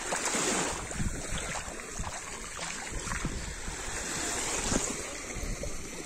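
Small Baltic Sea waves lapping and washing over the sandy shallows, swelling and easing, with some wind on the microphone.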